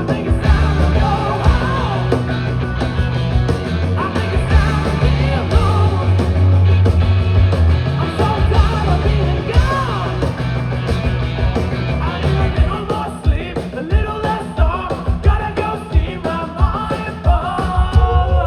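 Rock band playing live, with a sung vocal over heavy, sustained bass and dense guitars and drums.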